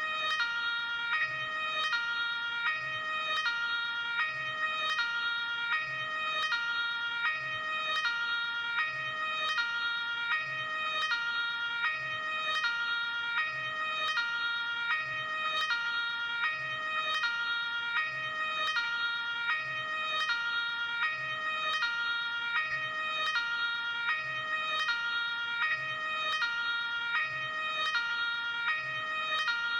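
Luxembourg ambulance hi-lo two-tone siren, alternating steadily between a high and a low tone about every 0.8 seconds.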